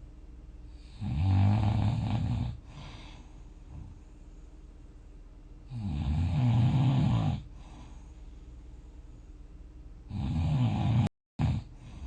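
A person snoring: three long snores, each about a second and a half, roughly four and a half seconds apart. The third is broken off by a split-second dropout near the end.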